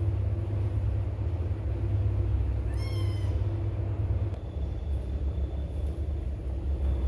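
A cat meows once, briefly, about three seconds in, over a steady low rumble that runs throughout.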